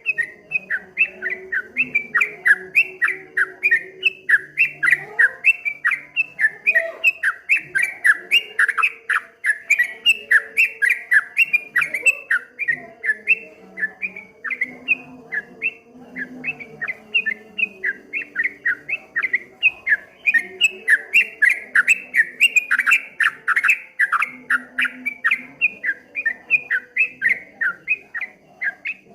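Yellow-vented bulbul (trucukan) singing a rapid, unbroken run of short, bright chirps, several a second: the rolling 'ropel' song style.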